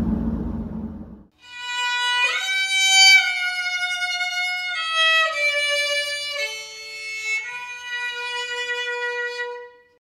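A low room hum cuts off about a second in. Violin music follows: a slow melody of a few long held notes, which stops just before the end.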